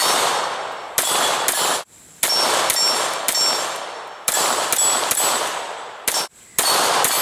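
Caracal C 9mm pistol fired in quick strings of two or three shots, about a dozen in all, each report trailing off in a long echo. High metallic ringing follows the shots, steel targets ringing from hits.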